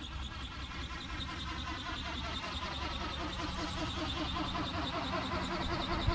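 Radio-controlled ornithopter in flight: its motor and gear drive whine while the wings flap, the sound pulsing in an even rhythm with each wingbeat. The pitch sags slightly midway and the sound grows a little louder as the model comes closer.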